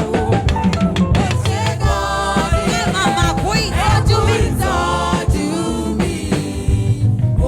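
Gospel praise music: voices singing over a drum kit and bass with a steady beat.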